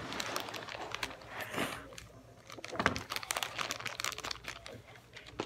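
Clear plastic bag of jigsaw puzzle pieces crinkling and crackling as it is handled, fingers working at its sealed top, with a busier bunch of crackles about three seconds in.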